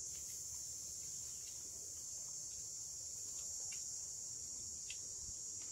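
Steady, high-pitched insect drone of a daytime chorus in grassland, with a few faint clicks.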